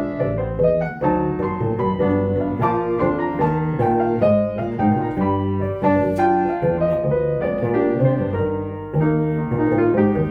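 Jazz piano playing a ballad with chords and melody, accompanied by bass holding low notes underneath.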